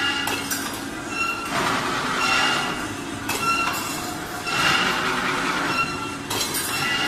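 Plastic-coated wire hanger making machine running through its cycle: short metallic squeals recur about every 1.2 seconds over a rushing, rattling clatter of wire feeding and forming.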